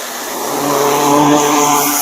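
Gas-powered 4 gallon-per-minute pressure washer running with a steady engine hum under the loud hiss of its wand spraying water onto roof tiles.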